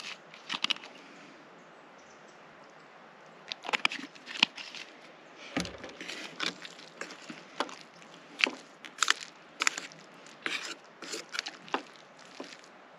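Plastic spork stirring macaroni and cheese in a metal camping pot: irregular scraping clicks of the spork against the pot, with a dull knock about five and a half seconds in.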